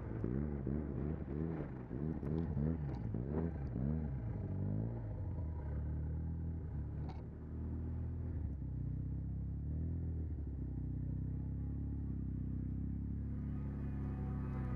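Arctic Cat M1100 Turbo snowmobile's turbocharged three-cylinder four-stroke engine, fitted with a custom aftermarket exhaust, under way. For the first few seconds the revs rise and fall again and again as the throttle is worked; then it runs at a steady drone, and the revs start to climb again near the end.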